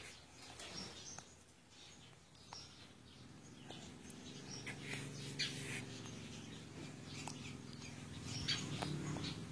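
Short, irregular high-pitched bird chirps, joined from about four seconds in by a low steady hum.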